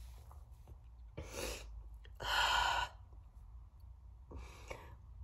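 A woman's heavy, shaky breathing as she cries and tries to compose herself: three breaths, the middle one about two seconds in the longest and loudest, the last one softer. A low steady hum lies underneath.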